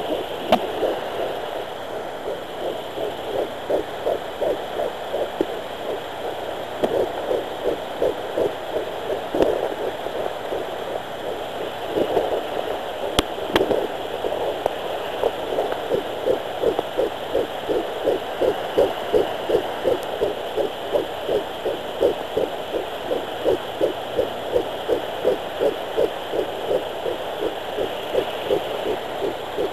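Fetal heartbeat at 11 weeks 3 days picked up by a home fetal Doppler: a fast, even whooshing pulse of about two and a half to three beats a second over the Doppler's steady hiss. The beat comes through more clearly in the second half as the probe finds the heart better, with a couple of sharp clicks from the probe about halfway through.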